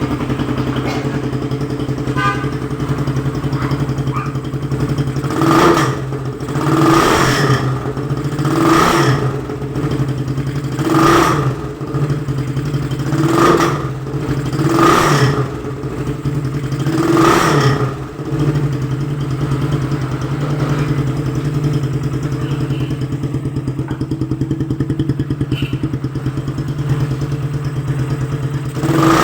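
Motorcycle engine with a gutted 'kalkal' exhaust pipe, its baffles removed, idling steadily and blipped about seven times in quick throttle revs in the middle, then idling again until one last rev at the end.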